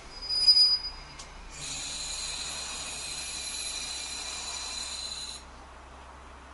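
KiHa 40 diesel railcar braking to a stop at a station platform. A brief loud burst about half a second in, then a steady high-pitched brake noise for about four seconds that cuts off suddenly as the railcar halts.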